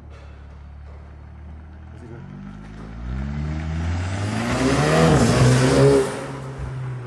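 Volkswagen Golf R's turbocharged 2.0-litre four-cylinder accelerating past, its engine note climbing in pitch as the revs rise. The note drops sharply near the end.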